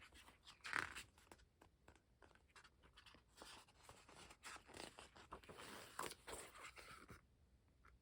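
Soft rustling and scraping of photocards being handled and slid against one another, with small taps, loudest about a second in.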